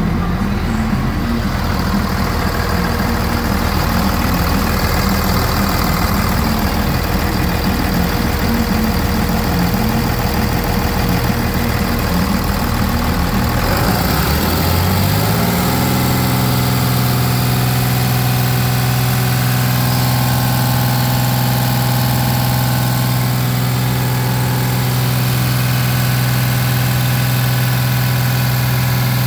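2009 Cummins ISB 6.7-litre inline-six turbo diesel running at idle, then speeding up about halfway through and holding steady at a higher idle.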